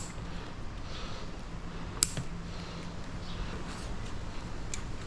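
Light handling of handlebar parts and tools: one sharp click about two seconds in and a fainter one near the end, over a steady low hum.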